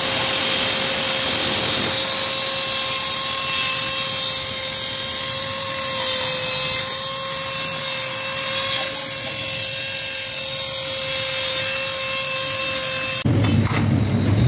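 Pneumatic hand tool running steadily in the combustion chamber of a Toyota cylinder head, a constant whine with hissing air. It cuts off suddenly near the end, and a lower rumble takes over.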